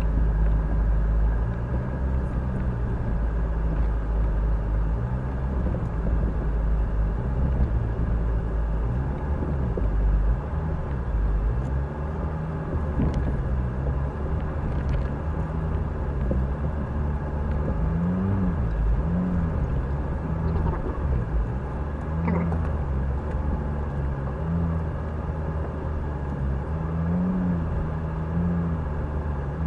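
Off-road vehicle's engine running at low revs while crawling over a rough forest track, the revs rising and falling gently as it works over the ground.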